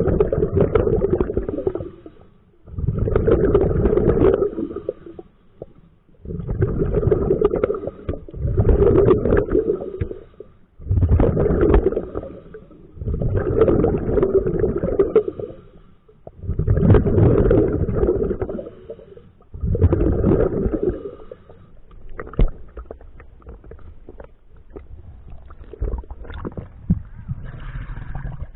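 A scuba diver's exhaled breath bubbling out of the regulator, heard underwater: a gurgling burst of bubbles every two to three seconds, with quiet gaps for each inhale. In the last several seconds the bubbling gives way to fainter, scattered clicks.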